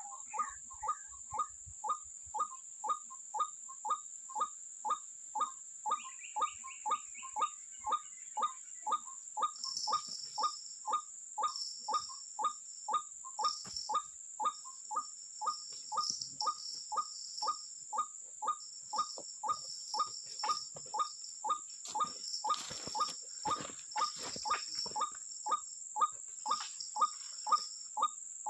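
White-breasted waterhen (ruak-ruak) calling, one short call repeated about twice a second at an even pace, with insects buzzing steadily in the background.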